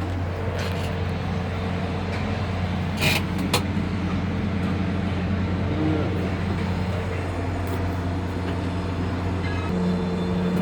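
Steady electric machinery hum inside a tower crane operator's cab, with a couple of short clicks about three seconds in.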